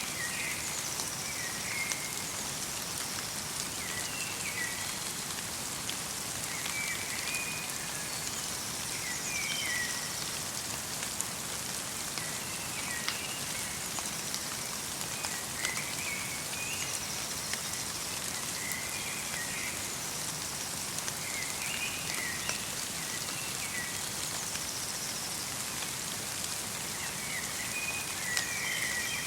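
Light rain falling steadily in a forest, with scattered drops ticking. A small bird calls over and over in short chirps every two to three seconds.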